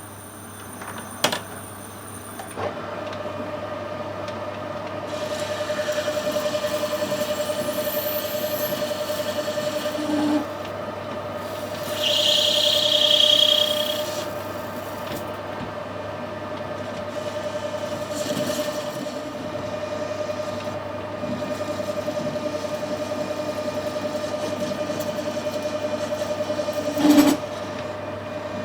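Metal lathe running with a steady hum as a tool cuts 316 stainless steel bar, roughing it to shape. The hum sets in about two and a half seconds in, and the cut grows louder, with a higher-pitched squeal about twelve seconds in. There is a sharp knock near the start and another near the end.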